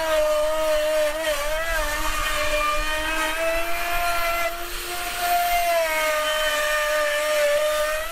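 Handheld electric router running steadily as it trims the edge of a plywood kayak deck panel, its high whine wavering slightly in pitch as it cuts.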